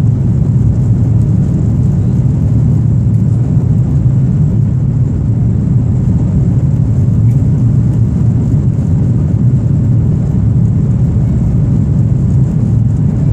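Steady cabin noise of an Airbus A330-223 in flight, heard from a seat over the wing: an even, low drone from its Pratt & Whitney PW4000 turbofans and the airflow past the fuselage.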